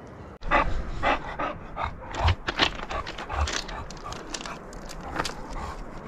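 Footsteps crunching on a loose rocky trail, with hard breathing close to the microphone, starting suddenly about half a second in.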